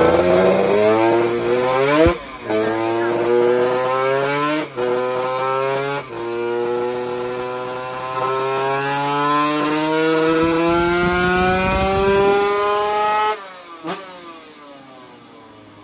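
Two-stroke drag-bike engine making a full-throttle dyno run: the engine note climbs in pitch through the gears, with short drops at the shifts about 2, 5 and 6 seconds in, then one long rising pull in top gear. The throttle is shut suddenly near the end, followed by a single short blip and a faint engine running low.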